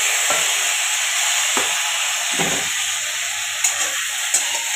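Cubed potatoes sizzling in hot oil in a metal kadai, just after being added, the sizzle gradually easing. A few light knocks and short clicks sound over it.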